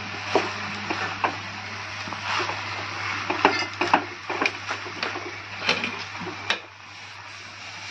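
Wooden spatula scraping and knocking against a metal pan as flattened rice is stirred into a sticky jaggery and coconut mixture, in irregular scrapes and clicks. A low steady hum underneath stops about six and a half seconds in.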